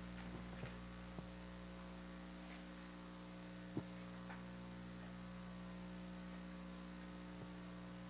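Steady electrical mains hum with a few faint clicks, the clearest about four seconds in.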